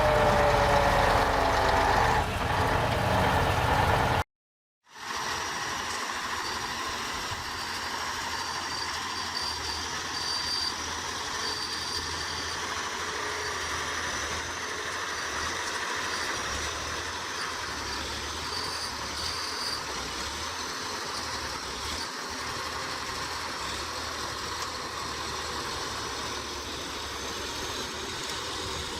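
Loud engine noise stops abruptly about four seconds in. After a brief silence, a vehicle engine idles steadily, with a faint high whine above it.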